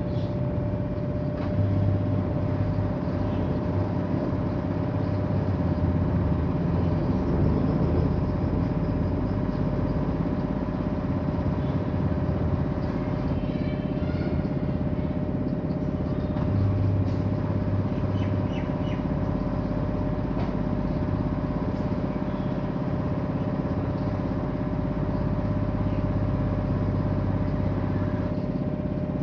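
Washing machine running its spin cycle on rubber anti-vibration pads: a steady drum-and-motor hum with a low rumble that swells now and then, the vibration much reduced by the pads.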